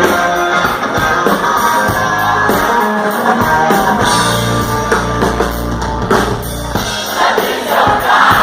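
Live rock band playing an instrumental intro on drum kit and guitar, with a heavy bass stretch in the middle. A crowd starts cheering over the music near the end.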